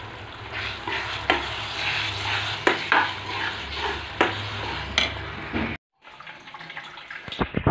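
Metal spatula stirring yogurt into a sizzling chili-tomato masala in a frying pan, with about five sharp scrapes and knocks against the pan. The sound cuts off abruptly about six seconds in, and a few quieter handling sounds follow.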